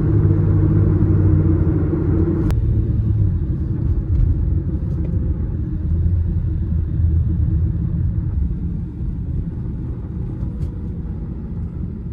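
Steady low engine rumble of a motor vehicle, with a single sharp click about two and a half seconds in; it eases off slightly after about eight seconds.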